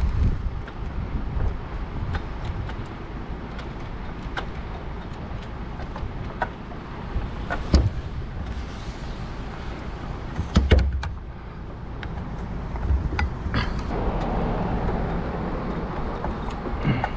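Steady low rumble of the elevated work platform's truck running, with scattered clicks and knocks from handling a fibreglass hot stick, one louder knock about ten seconds in.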